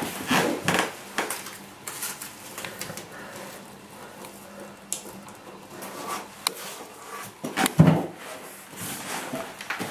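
Masking tape being handled and pressed into place on a floor template: scattered rustles and light clicks and knocks, with one louder knock about eight seconds in.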